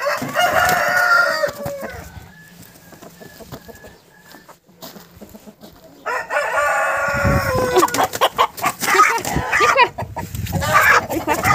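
Roosters crowing: one long crow at the start and another about six seconds in, followed by hens and roosters clucking and squawking.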